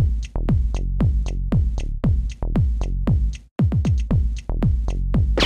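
Electronic dance music with a steady drum-machine beat of deep kick drums, cutting out for a moment about three and a half seconds in.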